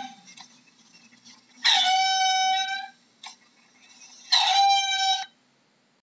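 A mongoose calling: two high-pitched, steady calls, each held about a second, the second a little shorter, with a short click between them.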